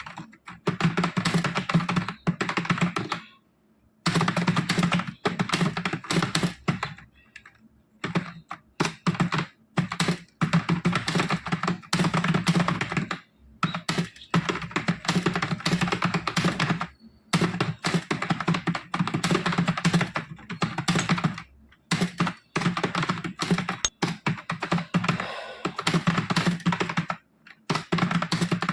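Fast touch-typing on a computer keyboard during a timed typing test: dense runs of rapid key clicks, broken every few seconds by brief pauses.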